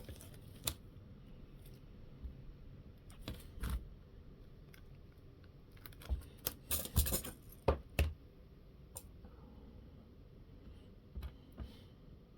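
Light clicks and taps of tiny screws and small RC car parts handled by hand on a workbench, scattered, with a quick cluster of louder clicks about six to eight seconds in.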